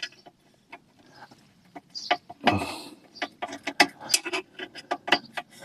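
Screwdriver working a screw out of a chair hinge on a hollow aluminium frame: irregular sharp metallic clicks and scrapes, coming thicker in the second half, with one longer, louder scrape about two and a half seconds in.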